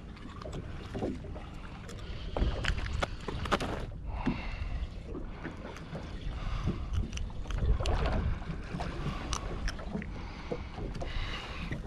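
Scattered, irregular knocks and clicks of gear being handled on a small fishing boat, over a low steady rumble of wind and water.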